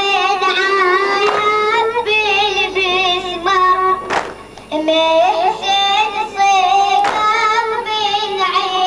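A high-pitched solo voice chanting a drawn-out, wavering Arabic Shia lament (latmiya) melody. A sharp beat falls about every three seconds, three times.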